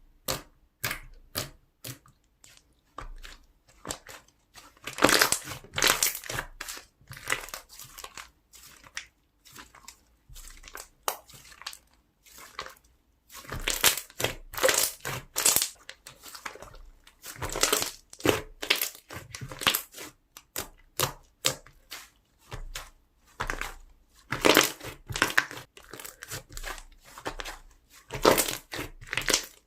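Slime being squeezed, stretched and pressed by hand, giving irregular runs of crackling pops and crunches.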